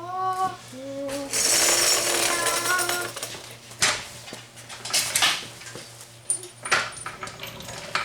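Metal tools and parts clinking and clanking as they are handled: several sharp knocks spread over the last four seconds, after a stretch of hiss.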